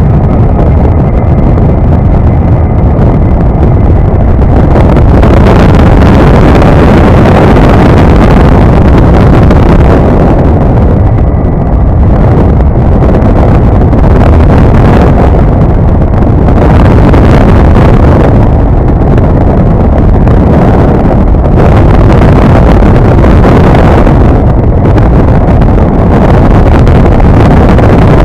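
Loud, continuous rush of airflow buffeting the camera microphone on a flexwing microlight trike in flight, surging in gusts every few seconds over the low drone of the running aircraft.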